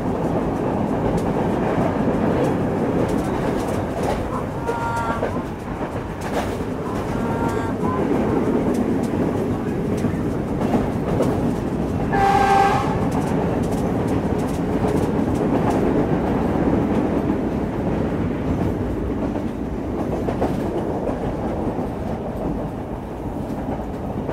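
A passenger train running along the track, heard from an open carriage door: a steady rumble of wheels on rail with clicks over the rail joints and wind noise. Halfway through, a horn blows once for about a second, and two fainter short tones come earlier.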